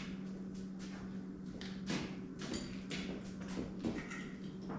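Faint scattered light knocks and clicks over a steady low hum.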